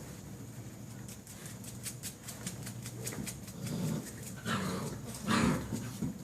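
Six-week-old hound-mix puppies playing, with light rapid clicking and a few short growls and yips, the loudest about five seconds in.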